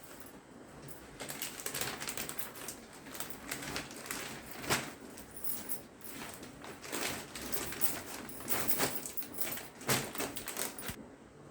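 Plastic packaging and fabric being handled: irregular crinkling, rustling and small clicks, with a few sharper crackles, one of them about halfway through.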